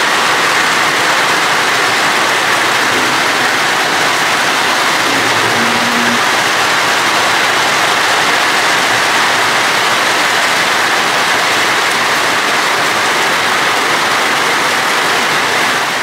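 Heavy rain falling, a loud steady hiss.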